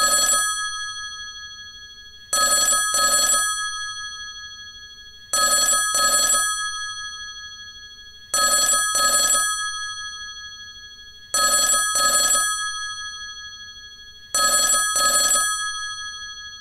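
Telephone bell ringing in a double-ring pattern, two quick rings about every three seconds, with the bell's tone lingering and fading between each pair.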